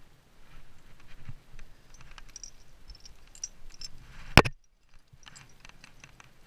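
Light scuffs, taps and clicks as a climber's hands and rock shoes move over the rock slab, with one sharp, loud knock about four seconds in.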